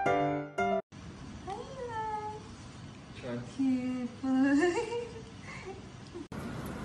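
Golden retriever puppy whining and yowling: a few drawn-out calls that slide up and down in pitch, the last ones lower and longer. Piano music plays for the first second, then cuts off.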